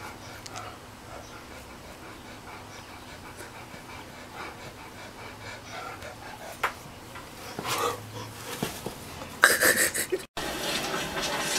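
A Great Dane panting steadily, with a few louder sudden knocks or scuffs in the last few seconds. The sound then breaks off abruptly and a louder steady noise follows.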